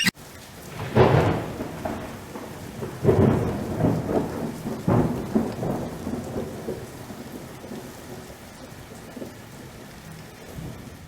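Rolling thunder over steady rain, several rumbles swelling up and dying away, the whole storm fading out near the end.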